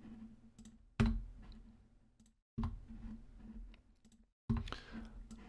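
Three sharp clicks of a computer mouse and keyboard, spaced about one and a half to two seconds apart. Each click is followed by a short fading trail of low hum.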